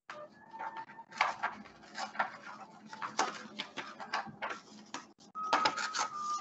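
Sheets of red textured paper rustling and crackling as they are handled and torn by hand, in irregular crisp bursts.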